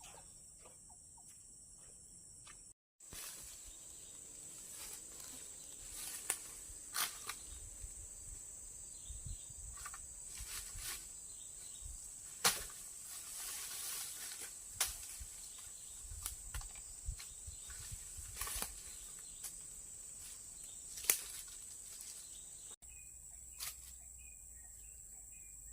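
Steady high-pitched chirring of crickets or other field insects, with many scattered sharp clicks and rustles through the middle stretch, the loudest about halfway through and near the end.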